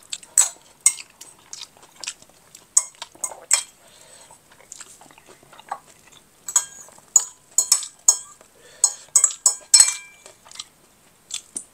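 Cutlery tapping, clinking and scraping on dishes during a meal, in irregular sharp clicks.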